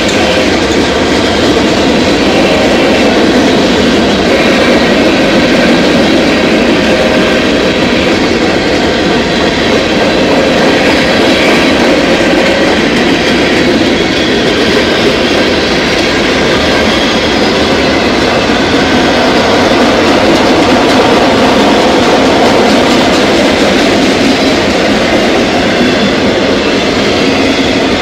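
Cars of a manifest freight train, covered hoppers and then autoracks, rolling past at close range: a loud, steady rumble and clatter of steel wheels on the rails.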